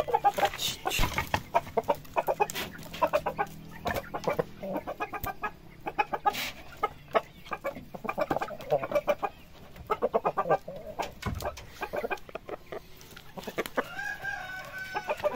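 O-Shamo chickens, a rooster and a hen, clucking in quick repeated runs of short calls, with one longer drawn-out call near the end.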